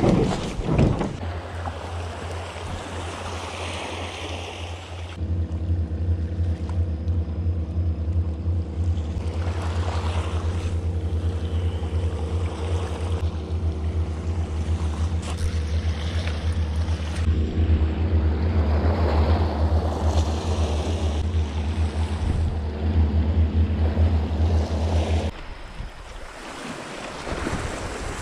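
Small boat's outboard motor running at a steady speed with wind and water noise. The engine note grows fuller about five seconds in and stops about 25 seconds in, leaving the wash of waves and wind.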